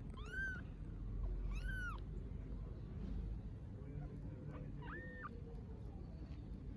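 Little kittens meowing from hunger: three thin, high-pitched meows, each rising then falling in pitch. Two come close together at the start and a third about five seconds in.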